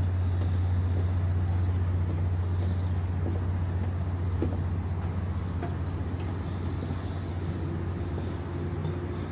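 A steady low engine hum runs without change under a light background hiss. A few faint, short high chirps come in about halfway through, and the hum eases off slightly near the end.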